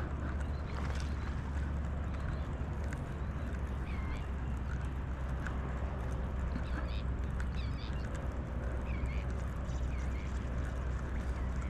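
Birds calling: short curved cries repeated every second or so, over a steady low rumble.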